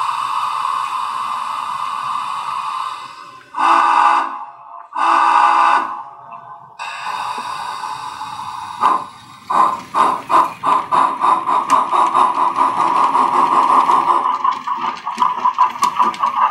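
Sound decoder of a model Challenger steam locomotive playing through its speaker: a steady hiss, two whistle blasts about four and five seconds in, then exhaust chuffs starting about nine seconds in and quickening as the engine starts to move, with the cylinder cocks hissing.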